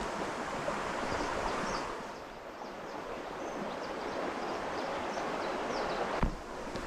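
Steady rushing water noise, with faint short high chirps above it. A brief sharp knock comes near the end.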